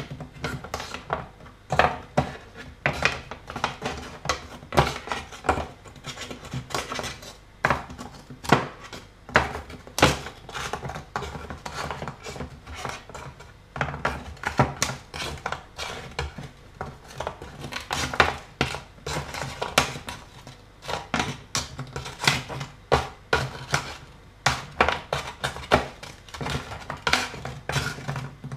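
Plastic spatula knocking and scraping on a plastic tray while dough pieces are handled, a run of sharp, irregular clicks and knocks, several a second.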